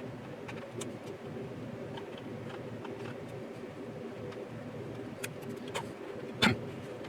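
Small clicks and taps of hand tools and plastic kit parts being handled on a workbench, with one sharper knock about six and a half seconds in, over a steady low hum.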